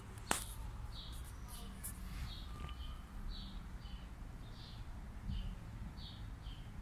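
A small bird chirping over and over, short high chirps often in falling pairs, a couple a second. A sharp click comes about a third of a second in.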